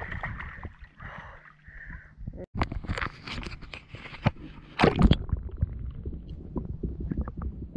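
Seawater splashing and sloshing as a European sea bass thrashes beside a landing net and is handled, with the loudest splashes about three to five seconds in. After that the sound turns muffled and low, with gurgling, as the microphone goes underwater.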